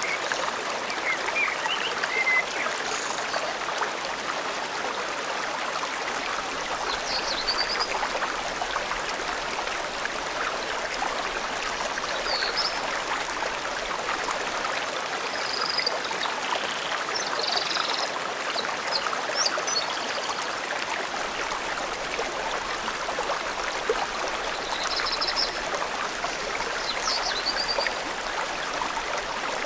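A forest stream flowing steadily over rocks, with small birds chirping now and then above the water.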